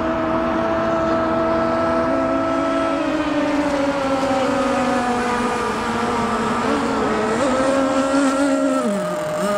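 CMB 45 7.5cc two-stroke nitro engine of a model offshore racing boat running flat out, a steady high-pitched engine note, with more than one engine tone heard at once. Near the end one engine's pitch drops sharply.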